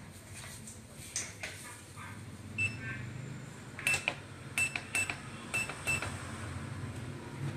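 Control panel of an LED light-therapy face machine beeping as its buttons are pressed to start the red-light treatment: about six short, high beeps, each with a click, through the second half, over a low steady hum.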